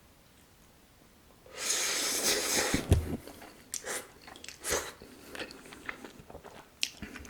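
A person eating spicy Carbo Buldak noodles with octopus, close to the microphone. About a second and a half in comes one long hissing slurp of noodles ending in a thump, then chewing with irregular mouth clicks.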